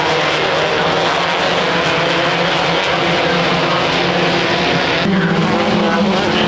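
Off-road race car engine running hard at high revs under heavy road and wind noise, changing pitch abruptly about five seconds in.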